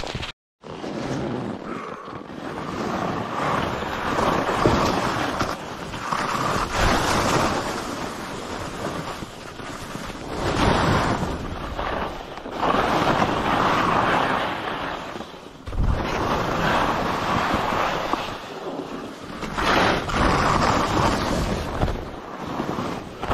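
Skis scraping and hissing over chopped, tracked snow, swelling with each turn about every three seconds, with wind buffeting the microphone.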